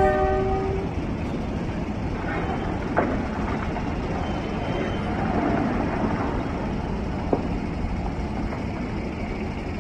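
Steady low rumble of open-pit mining machinery: a rope shovel loading Caterpillar 793F haul trucks. A short horn blast sounds right at the start, and there are two sharp knocks, about three and seven seconds in.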